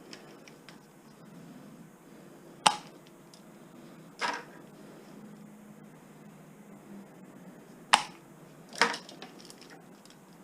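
Four sharp clacks of scrap electrical cable being handled, spaced a second or more apart, the first and third the loudest. No wire-stripper motor is running.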